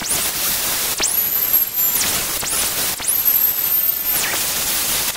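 Electric angle grinder cutting the end off a steel wishbone tube. The wheel makes a steady, harsh hiss in the metal, and the motor's high whine spins up and drops away several times as the trigger is pulled and released.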